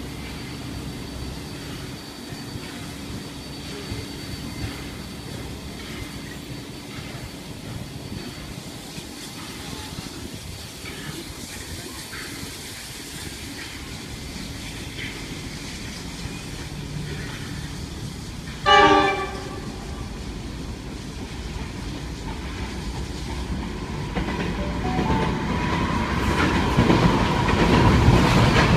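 Carriages of a steam-hauled passenger train rolling steadily past a station platform, wheels clicking over the rail joints. A short horn blast sounds about two-thirds of the way through. Near the end the rumble grows louder as a container freight train comes by on the next track.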